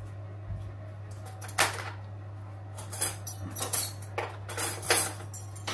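Cutlery clinking and scraping on dinner plates during a meal: a run of sharp clinks from about a second and a half in, over a steady low hum.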